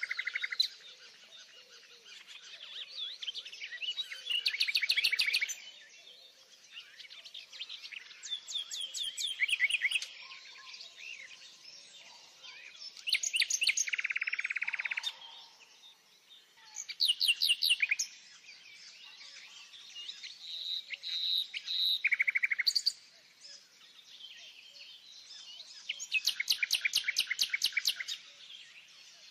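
Songbirds singing. A loud phrase of rapid repeated high notes comes about every four seconds, with softer chirps between.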